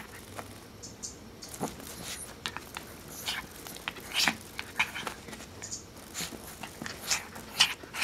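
Small dog pawing and snapping at a cicada on carpet: irregular soft clicks, scratches and rustles, with a sharper click near the end.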